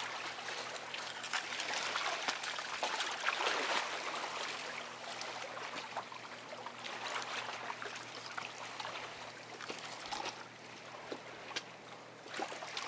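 Water trickling and splashing against a boat, with scattered small clicks and knocks.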